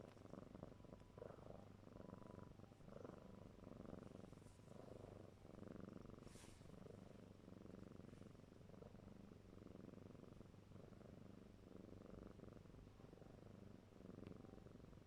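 Faint, close purring of a four-month-old kitten, going on steadily with an uneven pulse.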